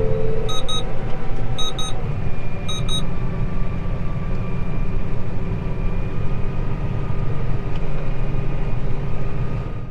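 A Case IH Axial-Flow combine running at steady working speed, with three short electronic beeps about a second apart in the first three seconds.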